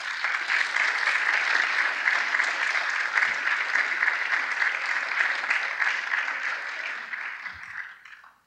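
Audience applauding steadily for several seconds, then dying away near the end.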